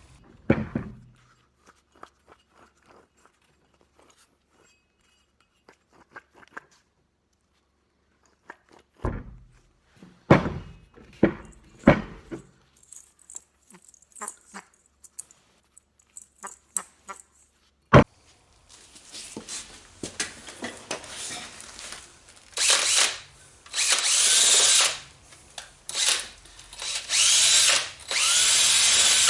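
Scattered clinks and knocks of metal tools and parts being handled, then, about two-thirds of the way in, a power tool with a wire wheel or abrasive disc run in repeated bursts of a second or two, spinning up each time, cleaning rust off steel hub parts.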